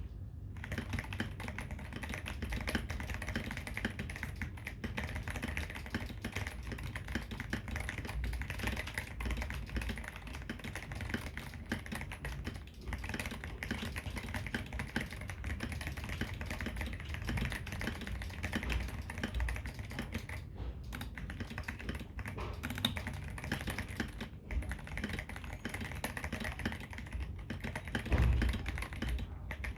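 Continuous fast typing on a Keydous NJ68 mechanical keyboard with lubed tactile brown switches, foam-filled case and Akko carbon retro keycaps, the keystrokes running together with a few brief pauses. A louder low thump near the end, typical of a spacebar or a heavier stroke.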